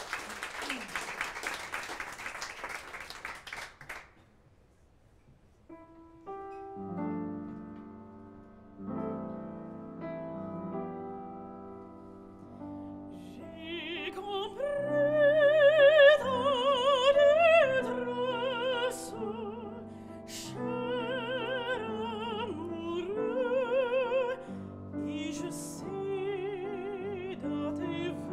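Audience applause dies away in the first few seconds, then a piano introduction begins about six seconds in, and a mezzo-soprano enters about halfway through, singing with a wide vibrato over the piano.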